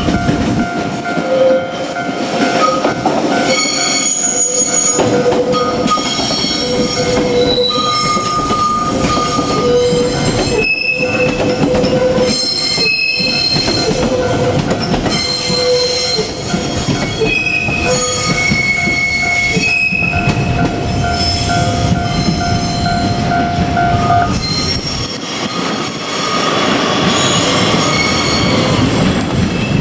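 JR Kyushu 817 series electric multiple unit running past on the rails, with a steady running rumble and wheel squeal that shifts between high tones. A steady tone runs underneath and stops about three-quarters of the way through.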